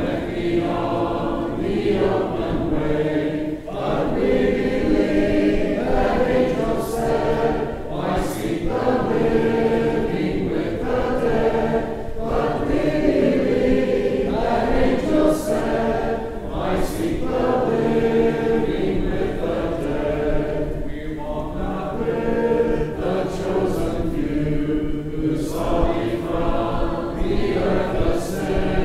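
A church congregation singing a hymn a cappella, many voices together without instruments. The singing comes in sustained phrases with a brief pause between lines every few seconds.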